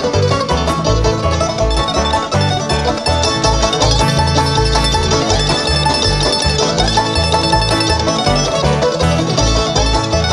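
Live bluegrass string band playing an instrumental passage: rapid banjo picking to the fore over strummed guitar and low bass notes.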